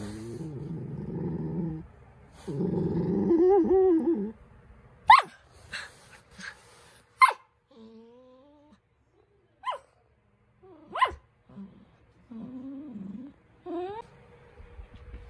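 Poodle growling and whining to get attention. Two stretches of low, wavering grumbles come in the first four seconds, then a handful of short, sharp high yips and a falling whine, and more grumbles with a rising whine near the end.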